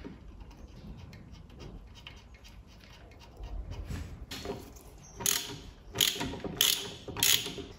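Hand socket ratchet clicking as a nut is tightened on a bolt: faint handling first, then from about four seconds in a run of short ratcheting strokes, roughly two a second.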